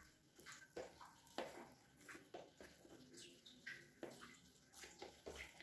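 Hands mixing and kneading soft, wet pastry dough in a glass bowl: faint, irregular squishing sounds, many short ones in quick succession.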